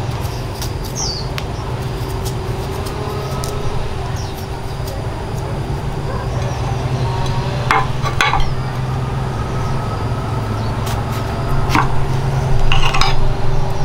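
A motor engine running steadily, with a few short knocks and clatters about eight seconds in and again near the end.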